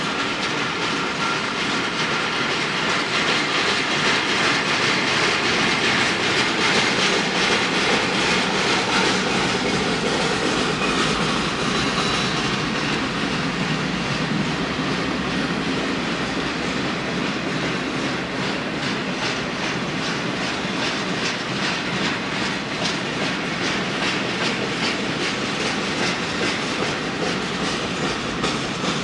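Freight train of flatcars rolling steadily past, its steel wheels clicking over the rail joints in a regular clickety-clack that grows more distinct in the second half.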